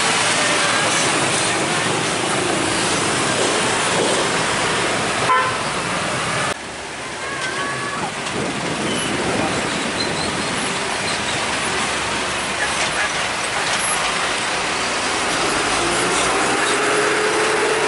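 Heavy UD Trucks dump trucks rolling past and over a railway crossing, with their diesel engines and tyres making a steady loud traffic noise and a couple of short horn toots. The noise drops abruptly about six and a half seconds in, then builds again as the next truck approaches.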